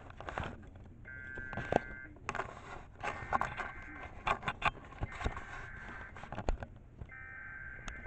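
EAS SAME header data tones: a faint warbling two-tone data burst, repeated about every two seconds, with another tone burst starting near the end. Sharp clicks and knocks of handling sound between and over them.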